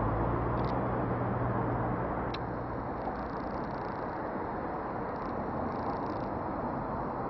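JR Central 371 series electric train running away into the distance, its rumble slowly fading. A low hum dies out about two to three seconds in.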